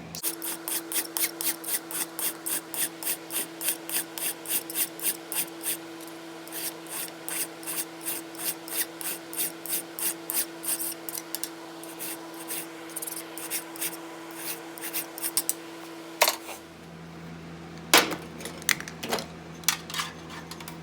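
Flat hand file rasping back and forth over the weld on a clamped steel bandsaw blade, about two and a half strokes a second, to grind the weld bead flush with the blade. The filing stops about three-quarters of the way through, followed by a few sharp knocks.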